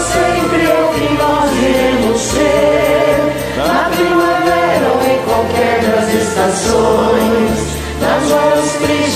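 Several voices singing together over a karaoke backing track with a steady bass line.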